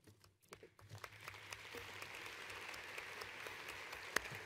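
Audience applauding: a few scattered claps that build within about a second into steady applause, with one sharper, louder clap near the end.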